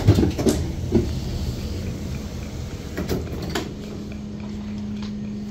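Door of a Deutsche Bahn Intercity 2 double-deck coach opening at the platform, with knocks and clatter in the first second, then a few knocks as a passenger steps off. A steady low hum starts about two-thirds of the way through.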